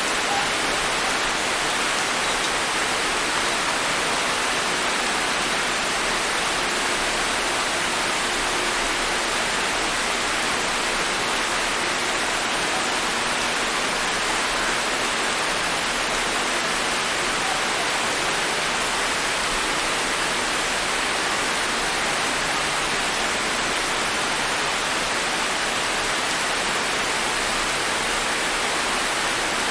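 Steady rain falling, a dense, even hiss of many drops.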